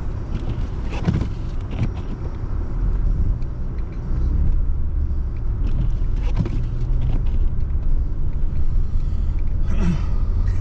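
Car interior road noise: a steady low rumble of the vehicle driving on a snow-covered street, growing louder about three to four seconds in, with a few brief knocks.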